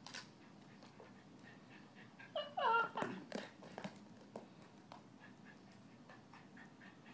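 A small dog whining: a quick run of short, high whines that fall in pitch, about two and a half seconds in, among scattered light clicks and taps.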